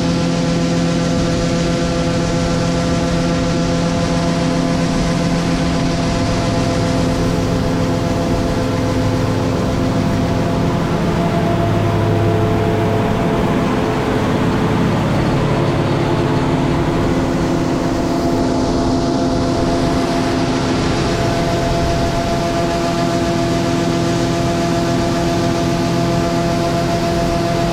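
Combine harvester running steadily while harvesting corn, a loud engine drone made of several steady tones; about midway the tones shift in pitch for a few seconds, then settle again.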